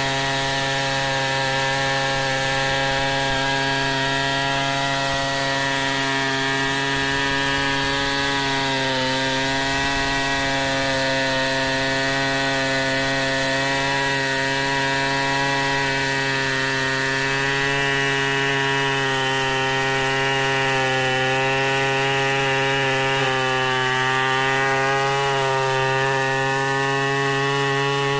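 Stihl 070 two-stroke chainsaw held at full throttle while ripping lengthwise through a log in a freehand milling cut. The engine note stays steady under load, sagging slightly in pitch now and then as the chain bites harder into the wood.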